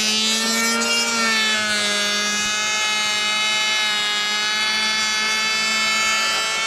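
Electric hand planer running at full speed: a steady high-pitched motor whine. Its pitch sags slightly about two seconds in, then holds steady.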